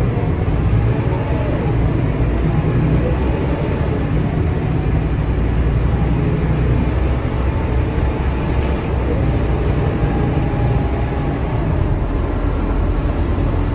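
Scania K230UB city bus under way, heard from inside its passenger saloon: a steady low engine and road rumble with whines that glide up and down in pitch.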